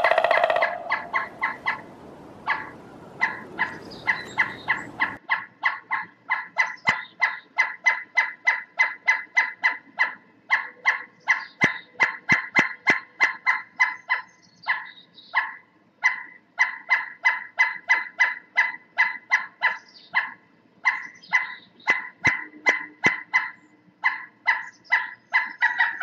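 Pileated woodpecker calling: a long series of loud, evenly spaced kuk notes, about three a second, broken by a few short pauses.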